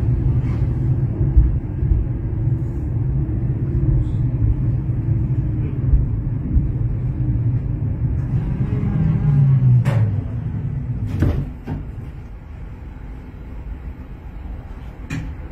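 Tatra tram running on the track, a steady low rumble of wheels and running gear, with a wavering whine building around nine seconds. Two sharp knocks follow about a second apart, and then the running sound drops noticeably quieter.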